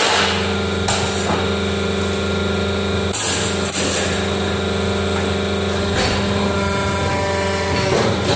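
A 100-ton hydraulic press brake's pump motor running with a steady hum, with scattered metallic knocks and clanks as steel sheet is worked at the dies.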